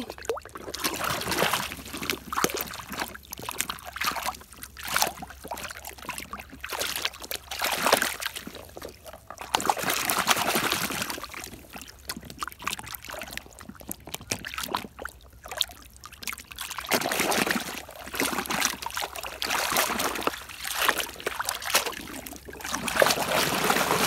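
Water splashing and sloshing in irregular surges as a mud-caked toy school bus is dunked and swished about by hand to wash the mud off.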